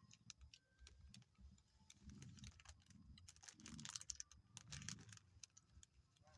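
Dog chewing and licking cake, a quiet run of quick, irregular wet clicks and smacks.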